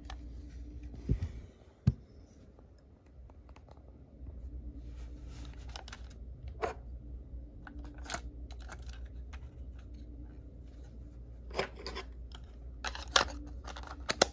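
Small sharp clicks and snaps of a Sony WM-600 Walkman cassette player being handled: its cassette lid and side battery compartment clicking as they are worked and a battery is slid in. Two clicks stand out as louder, one about two seconds in and one near the end.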